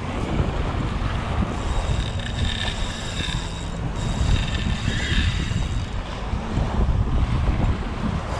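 Wind buffeting the microphone over choppy sea water sloshing around. A faint high-pitched whine comes and goes in the middle.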